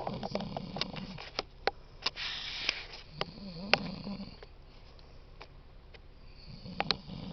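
A man snoring in his sleep: three deep, rasping snores about three seconds apart, with a breathy hiss between the first two. Sharp clicks sound throughout.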